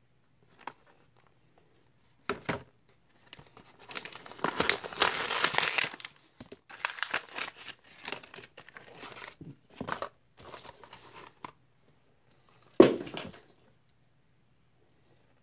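Plastic blister pack of a Johnny Lightning die-cast car being crinkled and torn open, in a dense stretch a few seconds in, then scattered crackles. One sharp knock near the end is the loudest moment.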